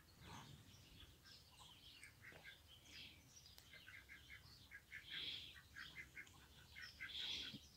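Near silence with faint bird chirping: a quick run of short chirps, several a second, from about four seconds in.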